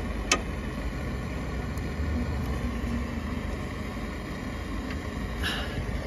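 A spanner clicks sharply once against a brake pipe union nut just after the start, with a fainter brief clink near the end, over a steady low rumble.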